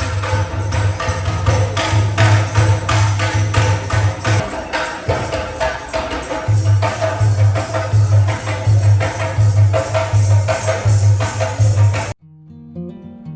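Tharu folk dance music, with a deep drum beating steadily and jingling tambourine-like percussion over it. The drum drops out for about two seconds midway. Near the end the music cuts off abruptly and quiet acoustic guitar takes over.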